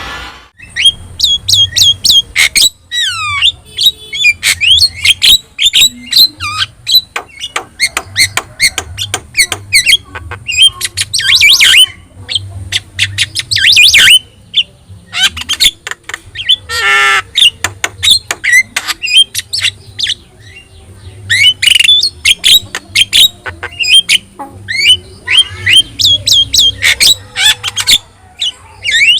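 Javan myna singing busily: a rapid, varied stream of squawks, whistles and chattering notes with only brief pauses.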